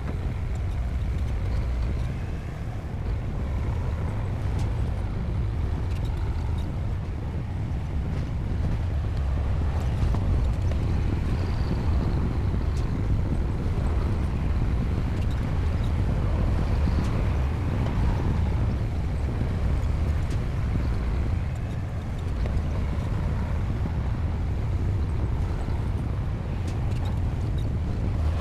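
Heavy diesel engine of a bulldozer running steadily under load, a continuous deep rumble with no breaks.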